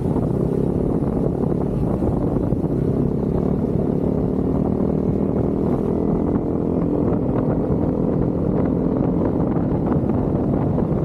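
Motorcycle engine droning at a steady cruising speed, under a constant rush of wind noise across the microphone.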